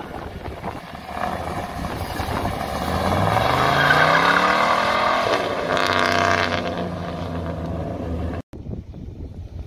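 A classic Chevrolet Chevelle's engine accelerating away, its pitch rising steadily as it revs, then a shift about halfway through and a steadier pull that fades as the car goes off down the road. The sound cuts off abruptly near the end.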